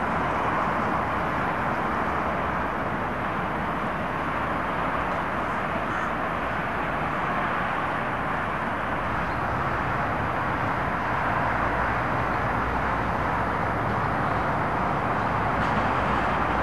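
Steady rumble of road traffic mixed with an E-series electric metro train running on an open-air track. A deeper rumble grows over the last few seconds as a train comes closer.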